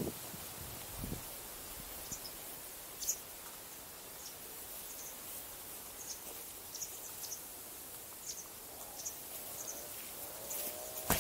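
Outdoor ambience: a steady low hiss with brief, high bird chirps scattered throughout. A sharp knock comes right at the end.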